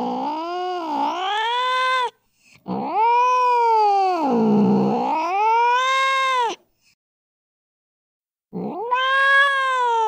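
A domestic cat caterwauling in long, drawn-out yowls that sink and rise again in pitch. The first yowl breaks off about two seconds in, a second lasts about four seconds, and after a silent pause a third begins near the end.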